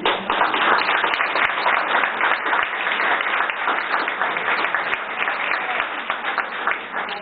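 A group of people applauding, many hands clapping at once, easing off slightly toward the end.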